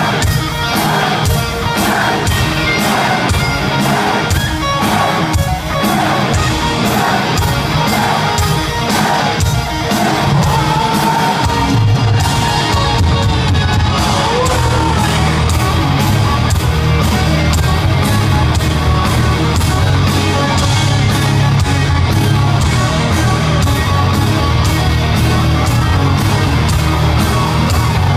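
Heavy metal band playing live over an arena PA, heard from among the crowd: drums and guitars, with a heavy bass low end coming in about twelve seconds in.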